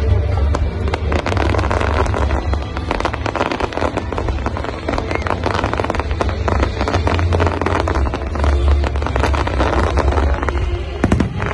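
Fireworks going off in quick succession, a dense run of cracks and bangs over a deep rumble from aerial shells and ground fountains.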